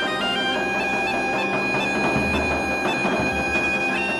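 Bagpipe music: steady drones held under a chanter melody that steps from note to note.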